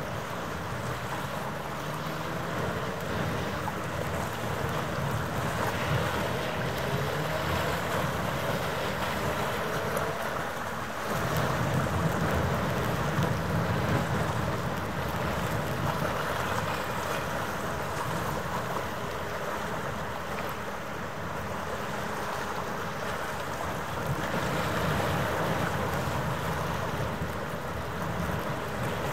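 Wind buffeting the microphone over a steady low mechanical hum that carries a few held tones. The wind swells and eases every few seconds, loudest about eleven to fourteen seconds in and again near the end.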